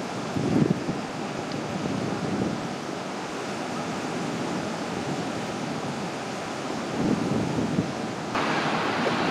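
Lake Michigan surf breaking on the beach, a steady rushing hiss, with wind buffeting the microphone in gusts about half a second in and again around seven seconds. About eight seconds in the hiss grows louder and brighter.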